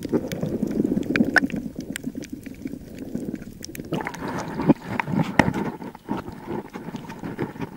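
Water sloshing and gurgling against an action camera underwater, with many small clicks and knocks. About four seconds in it changes to splashing as the camera breaks the surface.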